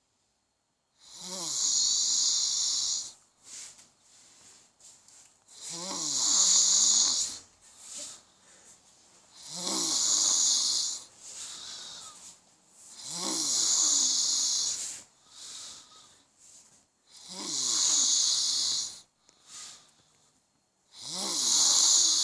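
Heavy snoring: six long snores about every four seconds. Each opens with a falling, pitched snort and goes on as a hissing rasp for about two seconds, with soft breaths between.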